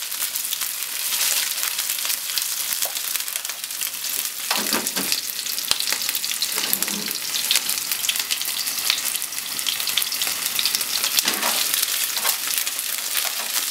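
Potato-starch-coated chicken pieces sizzling and crackling in hot oil in a nonstick frying pan, with a few brief bumps and shuffles as the pieces are moved around the pan.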